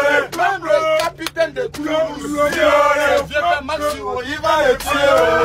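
Men chanting a wôyô, an Ivorian supporters' song, together, with a run of sharp hits about one to two seconds in.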